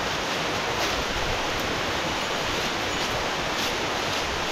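A steady rushing hiss with a few faint ticks.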